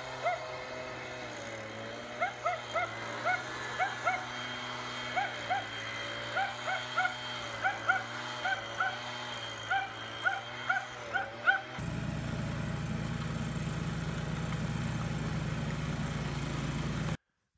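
A small dog yapping in quick, short, high barks, two or three a second, over the steady drone of a snow blower. About 12 s in the barking stops and a walk-behind snowblower engine runs alone, louder and rougher, then cuts off abruptly near the end.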